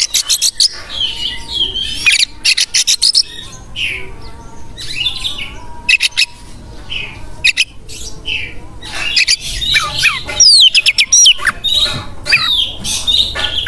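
Oriental magpie-robin (kacer) singing a fast, varied song of rapid trills, sharp whistled notes and harsh chattering phrases. It becomes a dense run of rising and falling whistles about nine seconds in.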